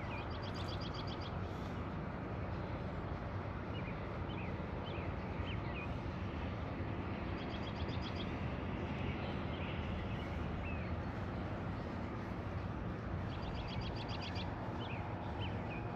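A small bird sings a short, rapid trill three times, several seconds apart, with a few scattered chirps, over a steady low rumble of outdoor background noise.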